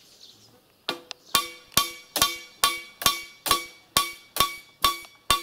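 Hammer driving a long steel nail into a wooden crossbeam: steady blows about two a second, starting about a second in, each with a short metallic ring. The nail is going in only slowly.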